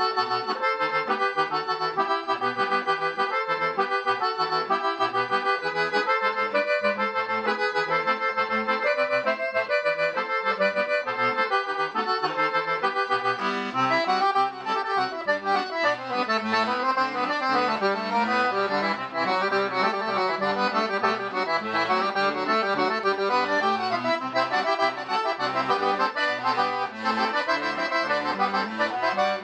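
Solo piano accordion playing a composed piece: a continuous line of melody notes over bass notes, turning brighter and busier about halfway through.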